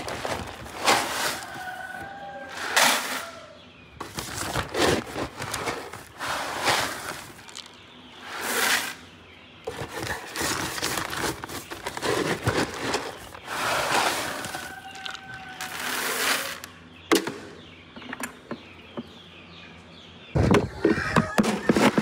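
Paper feed sacks rustling as pelleted feed is scooped out of them, in uneven bursts every second or two. Near the end comes a denser run of louder rattling as the pellets go into a plastic bucket.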